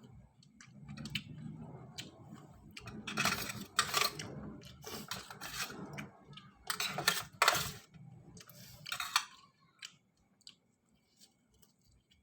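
Someone eating instant noodles close to the microphone: chewing, with a handful of short, hissy slurps around three, four, seven and nine seconds in.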